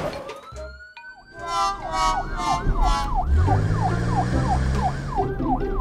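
A siren yelping in rapid rising-and-falling sweeps, about three a second, after a rising start. A low steady hum joins about three seconds in.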